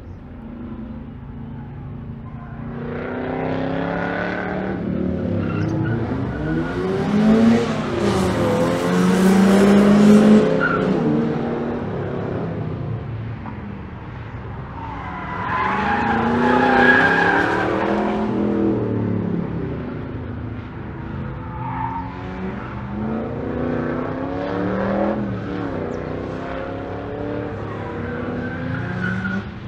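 Race-car engines on a circuit, featuring a Chevrolet Corvette, revving up and falling back through gear changes as cars lap past. The sound swells loudest twice, about a third of the way in and again past the middle.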